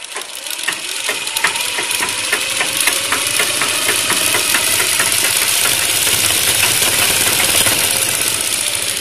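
Sewing machine stitching a test seam through cloth to check the stitch after thread-tension and needle-centring adjustments. It starts with separate clicks that come faster over the first couple of seconds, then runs fast and steady.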